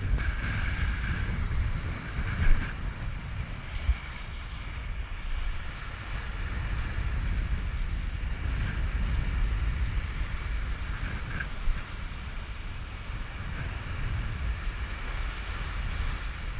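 Wind buffeting the microphone over the rush of waves and surf, with a few brief knocks.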